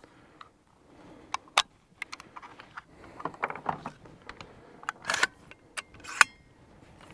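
Scattered metallic clicks and clatter of a Sterling Arms R18 .223 semi-automatic rifle being handled after a stoppage in which the bolt caught on the magazine feed lips, with a few louder clacks near the end.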